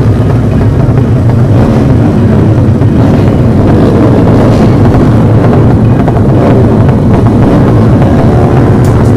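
Many motorcycle engines running together at close range, idling and revving, loud and constant, with overlapping pitches rising and falling.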